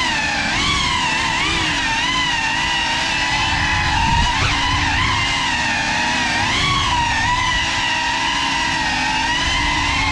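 Brushless motors and ducted propellers of a GEPRC CineLog35 cinewhoop FPV drone, a high whine whose pitch rises and falls continually as the throttle changes, with a brief sharp blip about four seconds in.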